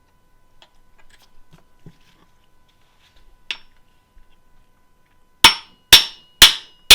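Hammer strikes driving a shift detent cap into a BMW ZF manual gearbox case: four sharp, ringing metallic taps about two a second, after a few faint clicks of parts being handled.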